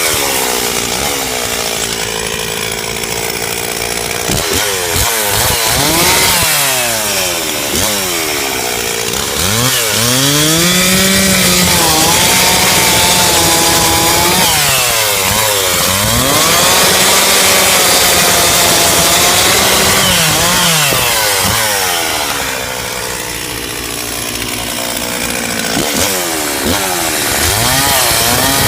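Gas chainsaw cutting up a felled tree into firewood, the engine's pitch rising and falling several times as the throttle is opened and let off.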